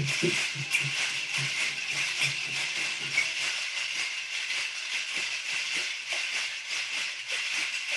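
Metal jingle cones on a jingle dress clinking and rattling continuously as the dancer does the sidestep, over a recorded sidestep song with a regular drumbeat that is strongest in the first couple of seconds.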